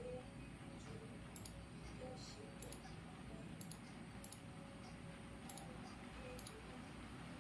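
Light sharp clicks, roughly one a second but unevenly spaced and sometimes in pairs, over a steady low background rumble and hiss.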